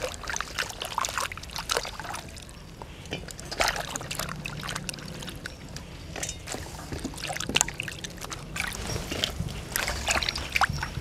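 Hands washing vegetables in a metal basin of water: water sloshing and trickling, with many irregular small splashes and drips.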